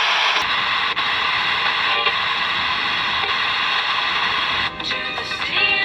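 Radio hissing with static between stations. Faint snatches of broadcast sound run under the hiss, and music comes in just before the end.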